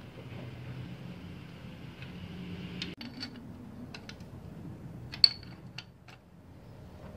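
Metal clicks and clinks of a 17 mm wrench on a Yamaha V-Star 650's oil drain plug as the plug is tightened back in, the loudest a single ringing clink about five seconds in, over a steady low hum.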